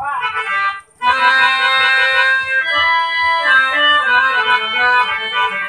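Harmonium playing a melodic interlude of held, changing notes, starting about a second in after a brief gap.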